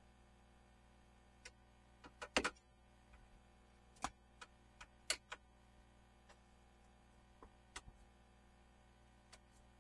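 Scattered light clicks and taps of hand tools and parts being handled during a spark plug change, about a dozen at irregular intervals, with the loudest little cluster about two and a half seconds in.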